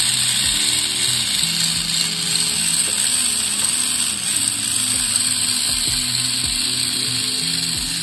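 Losi Mini-B's brushed electric motor and gear drivetrain whirring steadily at speed, the rear wheels on carpet tires spinning freely with no load.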